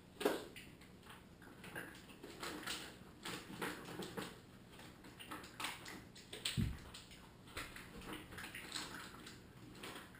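Faint, irregular clicks, rustles and light knocks of small objects being handled on a bathroom counter, with a dull thump just after the start and another about six and a half seconds in.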